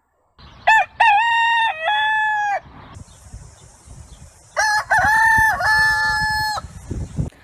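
A rooster crowing twice, two long cock-a-doodle-doos about two seconds each.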